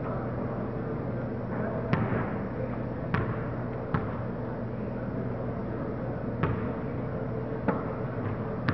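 A basketball bouncing on a hardwood gym floor: six sharp, irregularly spaced thuds over a steady background hum.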